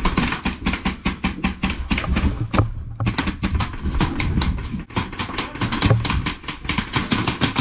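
Rapid airsoft gunfire: a fast, even run of sharp cracks, about ten a second, that breaks off for a moment about two and a half seconds in and then carries on.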